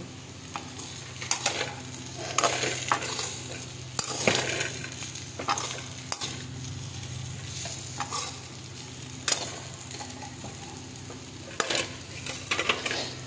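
A spatula scraping and stirring dry potato-and-cauliflower curry (aloo gobhi) around a metal kadhai: irregular strokes every second or two, with a steady low hum underneath.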